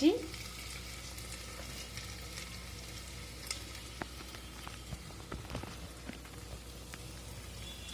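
Potatoes, onions and turmeric frying in hot oil: a steady sizzle with scattered crackles and a few light clicks.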